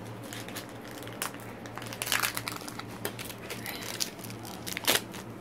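Foil Pokémon card booster-pack wrapper crinkling and crackling as it is worked open by hand, with a busier spell of crackles about two seconds in and one sharper, louder crackle near the end.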